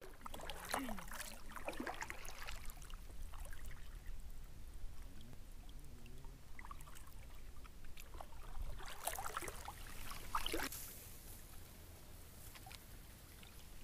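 Kayak paddle strokes splashing and dripping in shallow water, in two spells, one near the start and one about nine to eleven seconds in.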